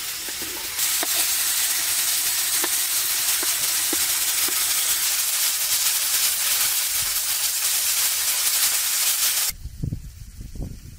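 Mushrooms and diced vegetables sizzling in hot oil in a frying pan: a steady hiss with a few small pops, louder from about a second in. It cuts off suddenly near the end, and a low gusty rumble of wind on the microphone takes over.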